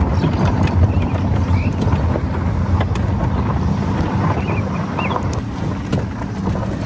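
A vehicle engine running steadily with a low hum, with wind rushing over the microphone.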